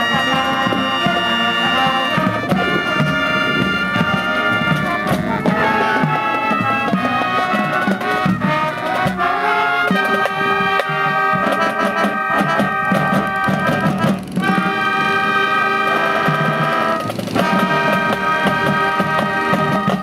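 High school marching band's brass section playing loud held chords, moving from chord to chord every few seconds, with a brief break about fourteen seconds in.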